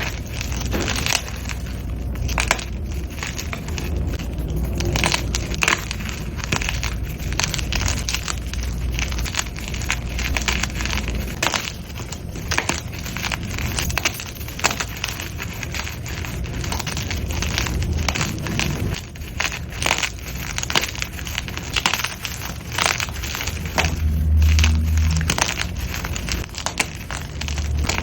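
Blocks of gym chalk being crushed and crumbled, giving a dense, irregular run of crisp, crunchy cracks.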